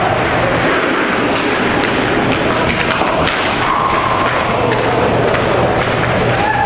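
Inline hockey play at the net: sticks clacking and thuds of players colliding around the goal, over loud steady rink noise.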